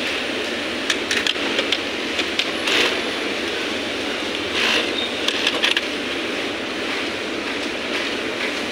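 Steady whir of running sewing machinery, with scattered light clicks and rustles as denim and a metal zipper are handled under the presser foot.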